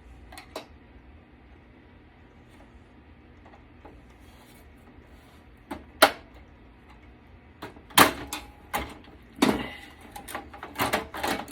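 Clicks and knocks of metal and plastic computer parts being handled as a desktop PC is taken apart. There is one sharp click about six seconds in, knocks around eight and nine and a half seconds, then a quick run of clattering near the end.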